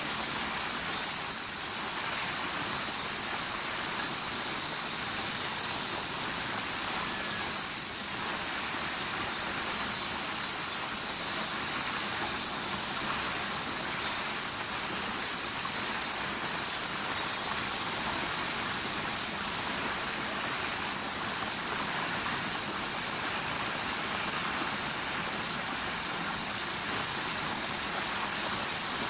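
Summer cicadas singing in a steady, high-pitched chorus, with a second, pulsed call coming in three times: about a second in, around eight seconds, and around fifteen seconds.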